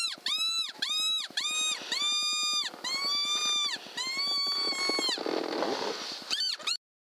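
A hand-blown fox whistle sounding a string of about seven high squealing notes, each rising and then falling in pitch, the later ones drawn out longer, then two quick squeals before it cuts off abruptly.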